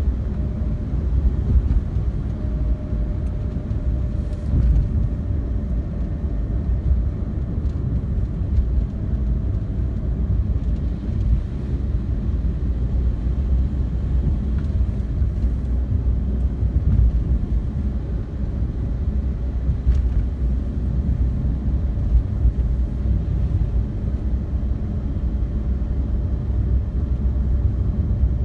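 Steady low rumble of a car's engine and tyres heard from inside the moving car's cabin.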